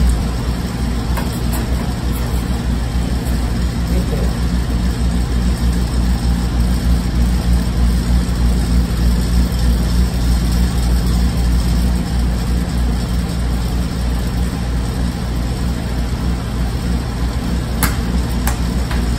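A steady, loud motor hum, like a machine or fan running in a workshop, holding an even pitch throughout. A couple of light clicks come near the end.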